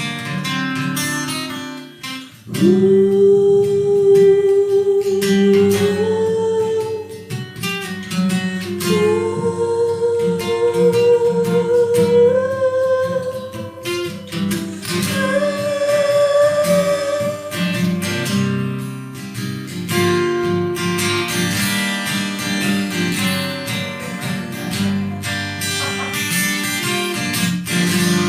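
Instrumental break of an acoustic song: strummed acoustic guitar under a long, held lead melody that steps upward in pitch, then the guitar strumming on alone for the second half.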